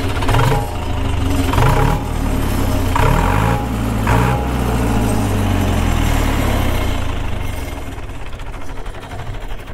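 Zetor 7211's 3.6-litre four-cylinder diesel engine heard at the exhaust, revved in four short throttle blips over the first few seconds. The revs then fall slowly back toward idle.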